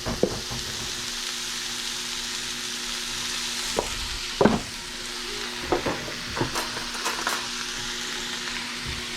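Steak and onions sizzling in oil in a frying pan, a steady hiss, with a few sharp knocks and clinks of a utensil against the pan around the middle.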